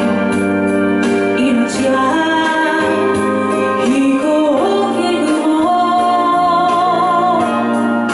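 A woman singing a slow ballad live through a microphone and PA, over keyboard accompaniment.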